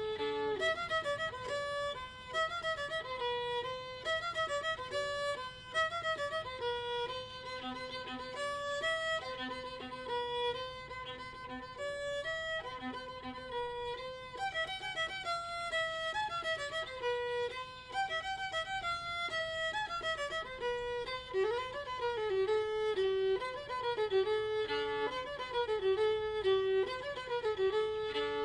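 Background music with a fiddle playing a flowing melody, some notes sliding in pitch.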